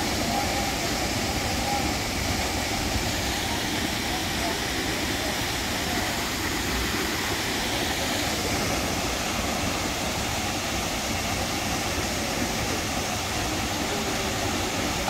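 Steady rushing of a waterfall pouring into its plunge pool, an even wash of noise with no breaks.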